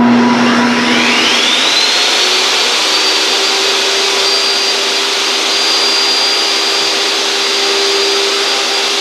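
Table saw starting up, its motor whine rising over about two seconds and then levelling off, running steadily while a sheet of 3/4-inch plywood is ripped into strips.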